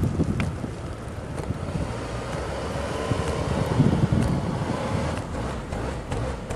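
Wind buffeting the microphone in gusts, over a car's engine running and its tyres spinning in deep snow, with a faint rising whine from about halfway in.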